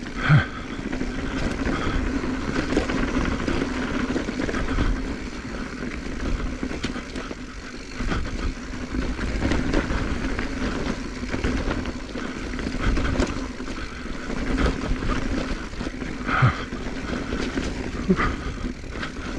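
2021 Giant Trance X 29 mountain bike rolling down a dirt bike-park descent: tyres running over dirt and rocks, with the rumble and rattle of the bike over rough ground. There are a few brief sharper sounds near the end.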